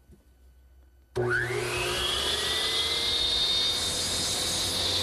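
Power miter saw switched on about a second in, its motor and blade winding up in pitch to full speed and then running steadily, ready to chamfer the corners of a hardwood mallet shaft at 45 degrees.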